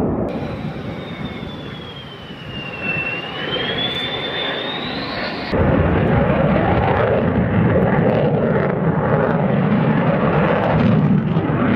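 Boeing 747 turbofans passing low, a jet rush with a high whine that dips in pitch and rises again. About halfway through it cuts abruptly to the louder, steady jet noise of a Saab Gripen fighter in flight.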